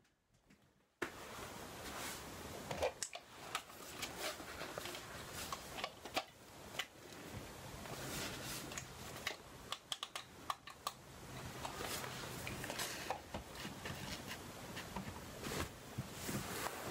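Rustling with many scattered light clicks and taps, the sound of things being handled close to the microphone; it starts suddenly about a second in.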